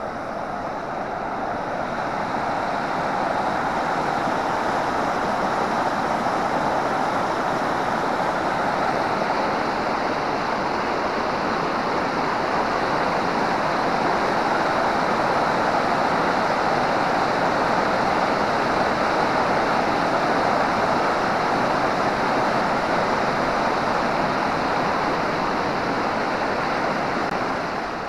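River water rushing over a weir and churning white beneath a footbridge, the river in strong flow. A steady rush that grows a little louder toward the middle and eases near the end.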